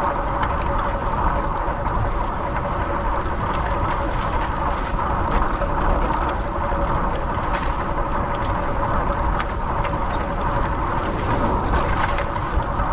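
Steady rush of wind and road noise from riding in traffic, with a thin steady hum and a few faint clicks.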